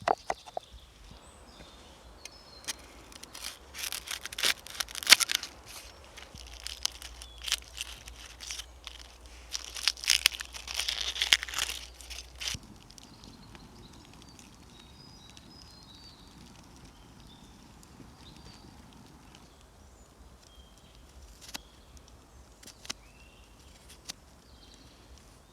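Crinkling, crunching handling noises with sharp clicks for about twelve seconds, loudest around the middle. Then it goes quieter, with faint bird chirps.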